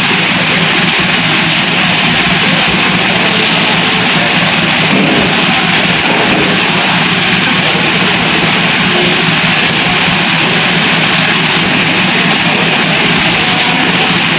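Massey Ferguson tractor's diesel engine idling steadily, a constant low hum with a dense hiss over it.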